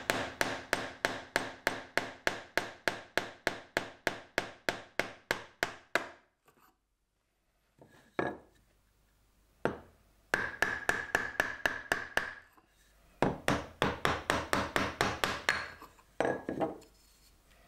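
Turned wooden mallet striking a chisel, chopping a recess into a block of wood: fast, even runs of about four blows a second, broken by pauses and a couple of single blows.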